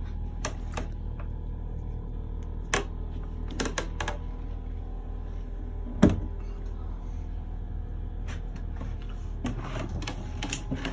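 Knocks and clicks of a handheld phone camera being moved about, with footsteps on a wooden floor, over a steady low hum. One louder thump comes about six seconds in.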